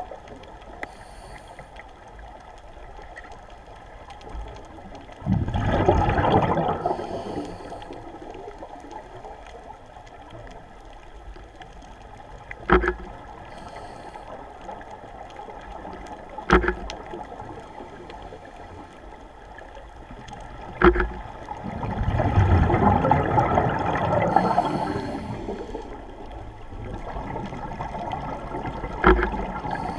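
Scuba regulator exhalation bubbles heard underwater through a GoPro's waterproof housing: three long bubbling bursts over a steady underwater murmur, with four sharp clicks spread between them.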